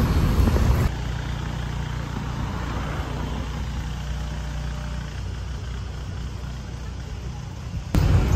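Motor vehicle engine idling with a steady low hum. Louder traffic noise fills the first second and returns briefly near the end.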